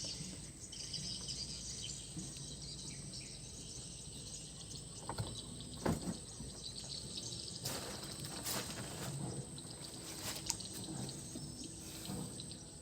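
Outdoor ambience by water: a steady high-pitched insect drone, with a few brief knocks and splashes, the loudest about six seconds in.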